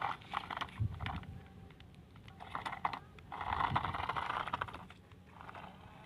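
Toy remote-control stunt car's small electric motors and plastic gears whirring in about four short start-stop bursts as it drives and tumbles, with rapid clicking and scraping of its wheels on gritty dirt.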